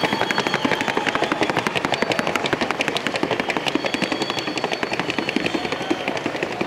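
Colombian paso fino horse's hooves striking a hard surface in the breed's fast, even four-beat gait, sharp footfalls at about ten a second.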